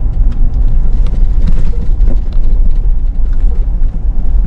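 A 5th-gen Toyota 4Runner driving, heard inside the cabin: a heavy, steady low rumble of road and engine noise, with frequent small rattles and clicks over it.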